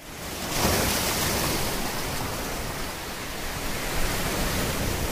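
Steady rushing noise with no tune or pitch, swelling in over the first half second.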